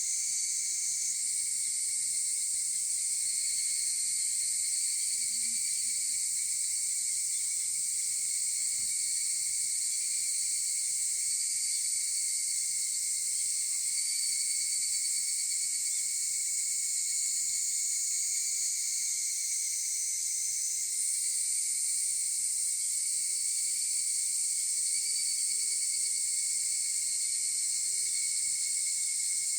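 Chorus of higurashi (evening cicadas, Tanna japonica) calling together as a steady, high-pitched din of overlapping insect calls.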